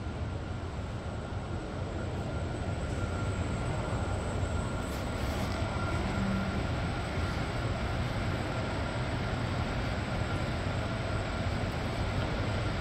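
Steady low hum and rushing air noise of a large indoor exhibit hall's ventilation and ceiling fans, with a faint steady high whine over it.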